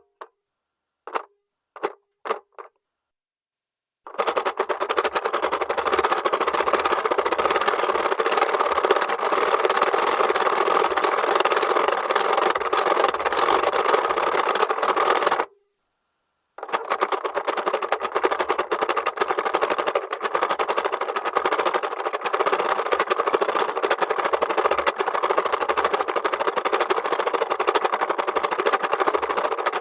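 Plastic mechanism of a 1975 Tomy owl toy clock: a few separate clicks, then a rapid, continuous clattering rattle that runs for about eleven seconds, breaks off for about a second, and starts again.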